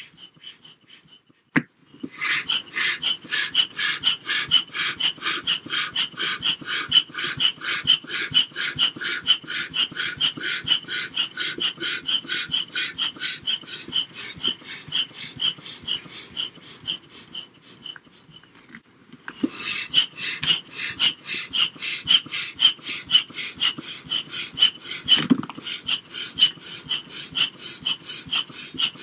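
Manual air pump puffing air through a hose into a vinyl bop bag, in a steady rhythm of about three strokes a second. It starts about two seconds in, stops for about a second past the halfway point, then resumes.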